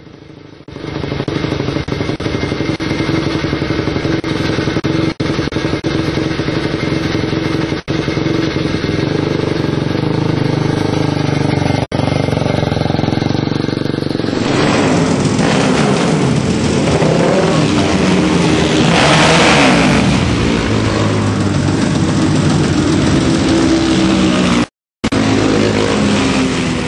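A 426cc single-cylinder four-stroke racing motorcycle engine fires about a second in and runs loud, the throttle blipped so the pitch rises and falls, with a few abrupt breaks in the sound.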